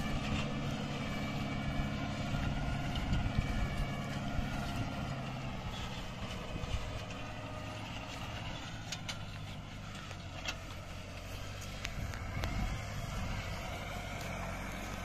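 New Holland TD590 tractor's diesel engine running steadily, with a few short clanks or rattles in the second half.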